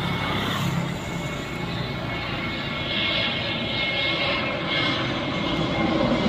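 IndiGo Airbus A320's jet engines on final approach, a steady rumble with a faint high whine that grows slowly louder as the airliner closes in.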